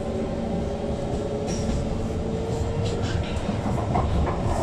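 Kawasaki Heavy Industries C151 MRT train running under power, heard from inside the car. The Mitsubishi GTO traction equipment and motors give a steady whine over the low rumble of the car.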